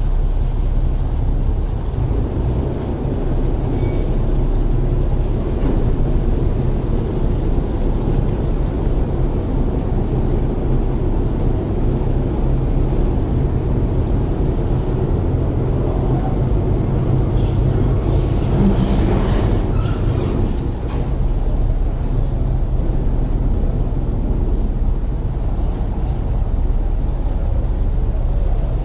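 Passenger ferry's engine running with a steady low drone as the ferry comes alongside the pier to berth. A short burst of knocks and squeaks comes about two-thirds of the way through.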